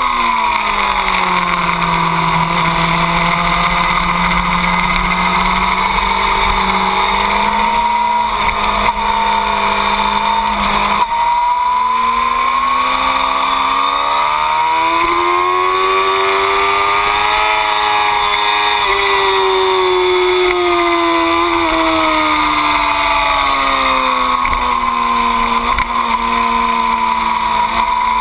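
2008 Yamaha R6's inline-four engine running at speed on a race track, with steady wind rush on the microphone. The engine note drops in the first couple of seconds, holds for several seconds, climbs slowly for about five seconds past the middle, then falls away again.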